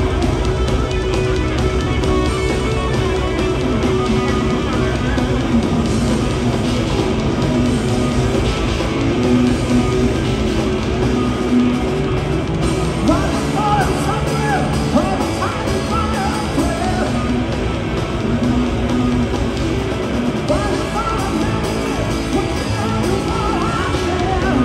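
A hard rock power trio playing live and loud, with distorted electric guitar, bass guitar and drum kit.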